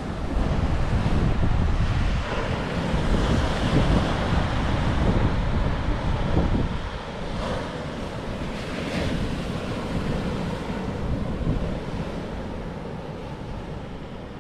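Surf washing and breaking over a rocky shoreline, with wind buffeting the microphone as a low rumble; it eases off somewhat over the last few seconds.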